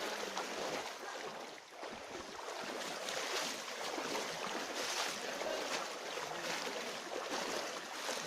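Floodwater rushing: a steady, even wash of water noise with a short lull about two seconds in.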